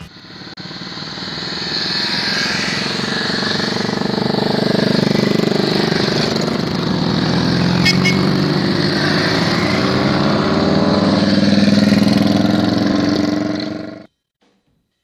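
A group of V-twin cruiser motorcycles, mostly Guerrero GVL 400s, riding past one after another. The engine sound builds over the first couple of seconds, then rises and falls in pitch as each bike goes by, and it cuts off suddenly near the end.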